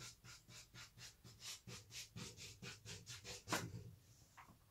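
Pastel scratching on paper in quick short strokes, about four or five a second, as hair is drawn into a mane. One stroke, about three and a half seconds in, is louder than the rest.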